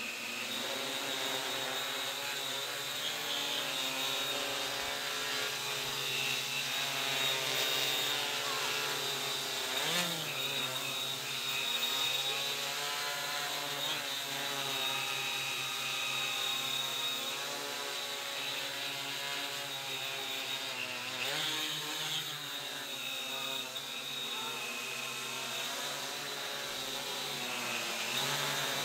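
Electric quadcopter motors and propellers buzzing in flight, their pitch rising and falling as the throttle changes.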